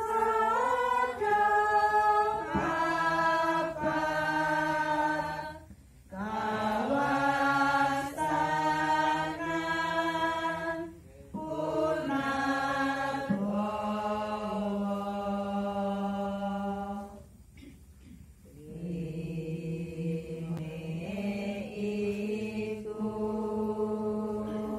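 Hindu prayer chanting: voices drawing out long phrases on a few held notes, five phrases with short pauses between.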